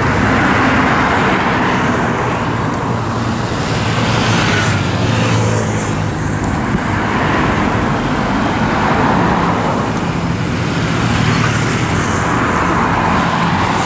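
Busy highway traffic: motorcycles, scooters and cars passing close by one after another, a steady engine and tyre noise that swells every few seconds as each vehicle goes past.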